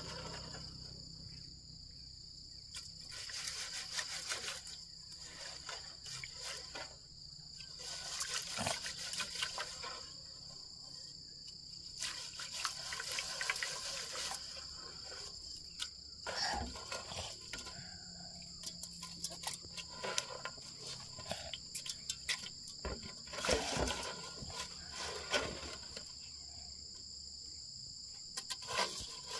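Rice being washed by hand in a metal pot of water: irregular swishing and sloshing of grains and water. Under it runs a steady high drone of insects.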